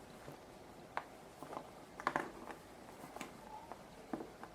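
Faint, scattered light clicks and taps of hands handling a knitted sock and a small tool while working the yarn tail into the ribbing.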